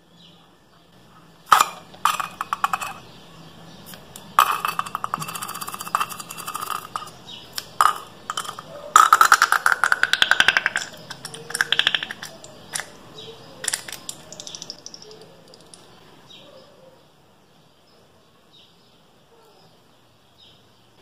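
Rubber balloon squealing and sputtering in several buzzy bursts as the liquid inside is squeezed out through its cut end, with a rising squeal about nine seconds in; it falls quiet in the last few seconds.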